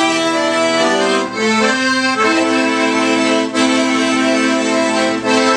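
Accordion playing sustained chords. It changes chord a few times in the first two and a half seconds, then holds one long chord.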